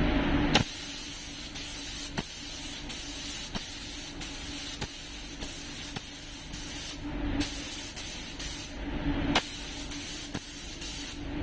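Gravity-feed spray gun hissing as clear coat is sprayed over pearl-white paint. The hiss stops briefly about seven and nine seconds in as the trigger is let go. The paint booth's fan runs underneath.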